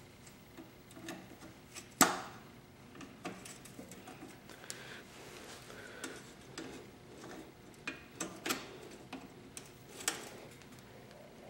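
Scattered small metal clicks and taps as hand tools work the cotter pin in a motorcycle foot peg's pivot pin, straightening its bent legs to pull it out; one sharper click about two seconds in.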